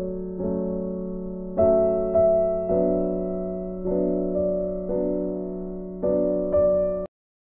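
Background piano music: slow, sustained chords struck every half second to a second. It cuts off abruptly just before the end.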